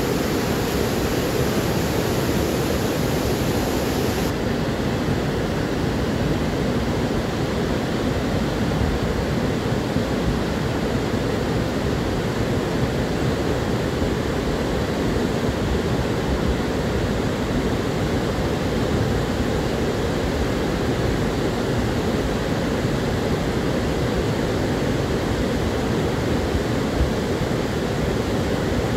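Steady rushing noise of a muddy mountain river in flood, heavy with sediment and woody debris, loud and even, strongest in the low range. The higher hiss thins slightly about four seconds in.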